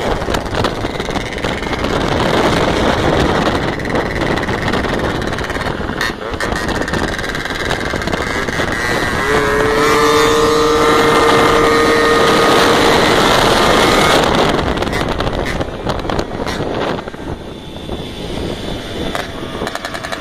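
Tuned two-stroke Mobylette moped engine running hard under way while climbing, with wind rushing on the microphone. A clearer, slightly rising note stands out for a few seconds about halfway through.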